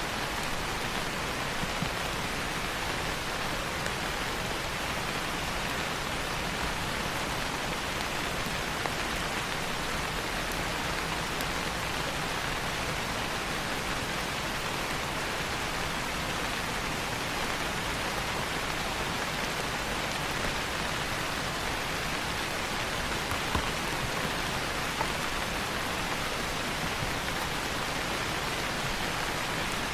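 Steady rain falling, an even hiss of many drops that holds constant throughout, with a few faint isolated pops.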